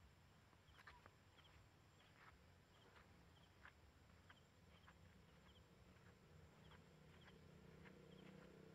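Near silence: faint outdoor ambience with small high chirps repeating about twice a second.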